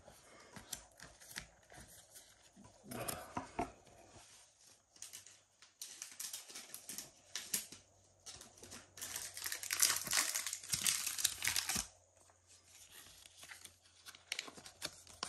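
Plastic trading-card sleeves crinkling and rustling as Pokémon cards are handled and slid in and out of them, with scattered small clicks. The crinkling is loudest in a stretch about two-thirds of the way through.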